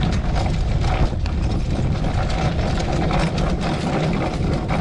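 Horse pulling a driving cart at speed across grass: hoofbeats and the steady rumble and rattle of the cart and harness, with wind buffeting the microphone.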